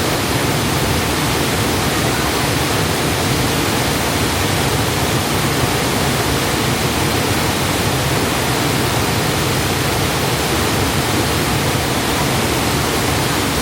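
Waterfall's rushing water, a loud, steady, unbroken noise that holds level throughout.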